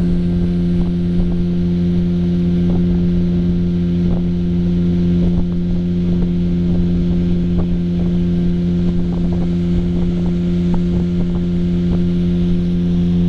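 Boat motor running at a steady, unchanging speed, a constant engine drone.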